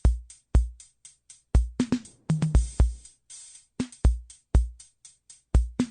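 Outro music: an electronic drum-machine beat with deep kick drums, snappy snare and hi-hat hits, and short bass notes.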